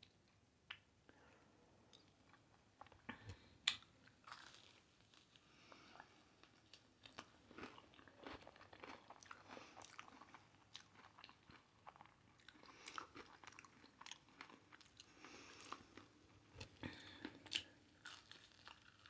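Quiet close-up eating of a hot Cheeto-crusted fried pickle: a crisp bite about three and a half seconds in, then crunching and chewing with many small crackles and mouth clicks.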